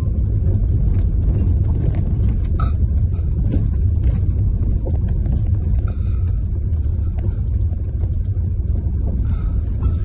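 A car driving slowly on an unpaved dirt and gravel road, heard from inside the cabin as a steady low rumble of tyres and engine.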